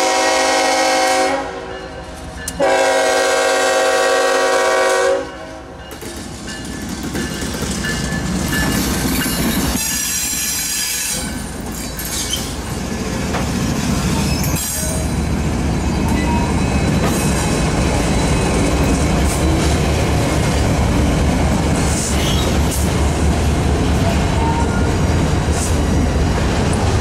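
Union Pacific diesel locomotive's air horn sounding a chord in two long blasts, the first ending about a second in and the second from about two and a half to five seconds. Then the double-stack freight train rolls past with a steady low rumble of engines and wheels on the rails, with a brief high squeal about ten seconds in.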